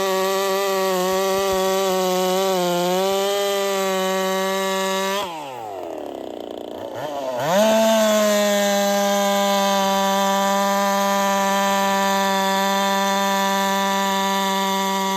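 Two-stroke chainsaw running at high, steady engine speed, wavering slightly early on. About five seconds in, the throttle is let off and the engine note falls away. About two seconds later it revs back up to full speed and holds there.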